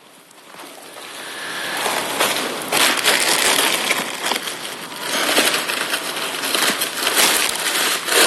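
Phone handling noise: a dense crackling rustle from a hand rubbing close to the phone's microphone, growing louder over the first two seconds.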